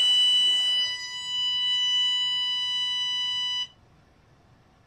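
A breath puffed into the microphone hole of an Our K9 Garnet anti-bark collar sets off the collar's buzzer: one steady, high-pitched beep lasting about three and a half seconds that cuts off suddenly. On this sixth test puff the beep is the collar's signal that it is also giving a small static shock.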